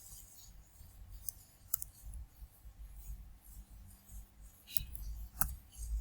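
A few faint, sharp clicks, strongest one near the end, over quiet room tone with a low hum.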